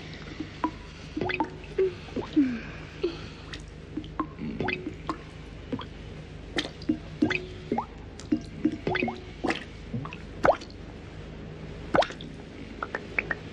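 Water drops falling into a metal pot: irregular, ringing plops, a few a second, some much louder than others.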